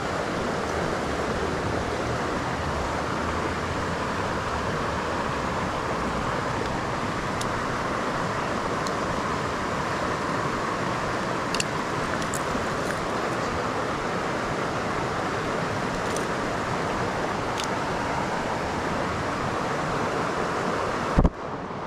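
Steady rush of a shallow river running over stones, with a few faint small clicks in the middle. A sharp click and a brief cut-out near the end.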